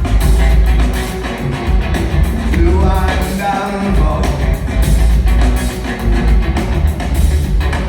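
Live rock band playing loud, with heavy pulsing bass and drums and a voice singing briefly about a third of the way in.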